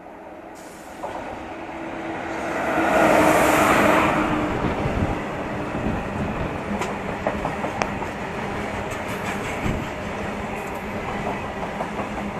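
Goods train passing at speed: the rush of the approaching locomotive grows to its loudest about three seconds in as it goes by. Then a long rake of covered freight wagons rumbles past steadily, wheels clacking on the rails.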